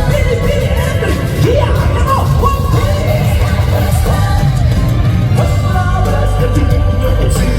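A live J-rock band plays loudly with a heavy low end while a male lead vocalist sings and yells over it, recorded from the audience in a large hall.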